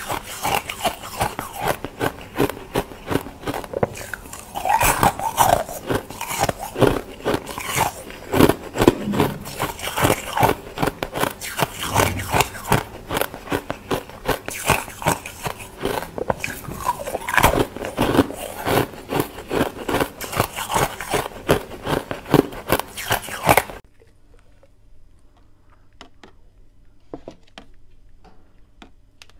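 Close-up chewing of crunchy ice chunks, a fast, irregular run of crisp crunches and bites. About 24 s in it cuts to a much quieter stretch of faint, scattered crackles.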